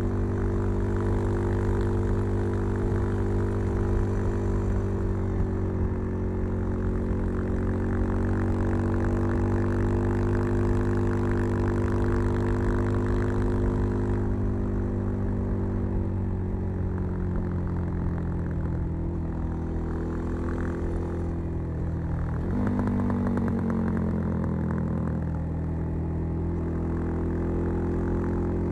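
Suzuki DR-Z 400 supermoto's single-cylinder four-stroke engine running through a LeoVince V3 silencer with its dB killer fitted, fed by a Keihin FCR 39 carburettor. Engine speed holds fairly steady for the first half, falls away over several seconds in the second half with a brief jolt, then picks up again near the end.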